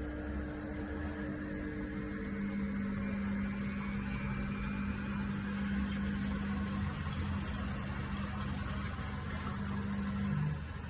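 Panasonic front-load washing machine running: a steady motor hum with a few steady low tones. The strongest tone shifts slightly lower near the end, as the drum motor changes speed.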